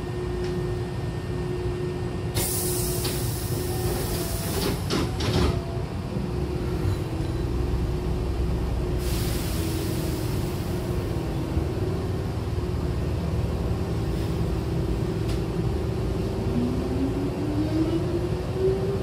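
Hankyu train's passenger doors sliding shut with a loud hiss and a few knocks, over a steady hum from the train. Another hiss follows a few seconds later, and near the end a rising whine from the traction motors as the train starts to pull away.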